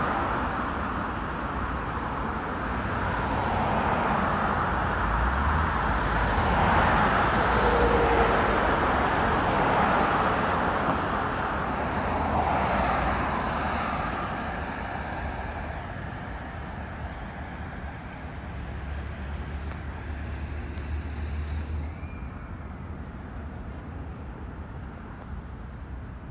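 Road traffic passing on a multi-lane city road, a steady noise of tyres and engines. It builds and is loudest through the first half, then fades as the cars move off.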